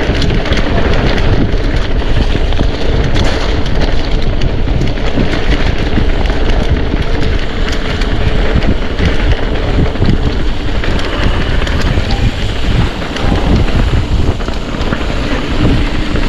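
Wind buffeting the microphone of a rider-worn action camera on a moving mountain bike, with the bike's tyres and frame rattling and clicking over the trail. A faint steady hum runs under it for the first ten seconds or so.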